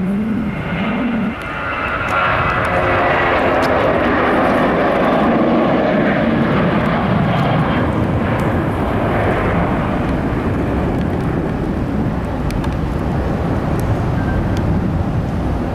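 Jet airliner's engines heard close by: a loud, sustained rush of engine noise that eases slightly in the second half.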